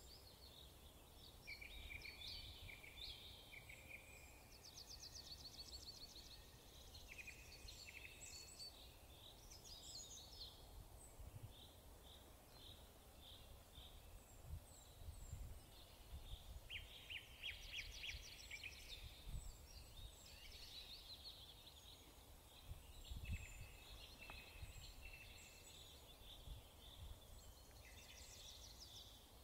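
Small birds chirping and trilling in repeated bursts of high, rapid notes, faint, over a low rumble with a few soft thumps.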